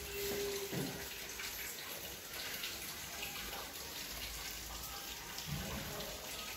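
Steady hiss of background noise with two soft low knocks, one about a second in and one near the end.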